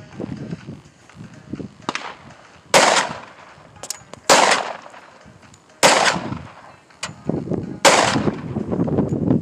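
Four loud handgun shots fired at a steady pace, about one and a half to two seconds apart, each with a short trailing echo, and a couple of fainter cracks between the first shots.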